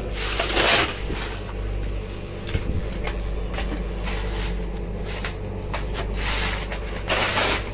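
Fishing boat's engine running with a steady low drone. A few short harsh, noisy bursts come over it, one near the start and two near the end.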